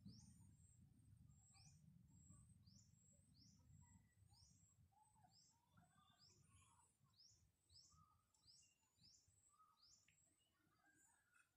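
Faint, high-pitched chirps from a small bird, each falling in pitch, repeated about one and a half times a second, over a faint low rumble in the first few seconds.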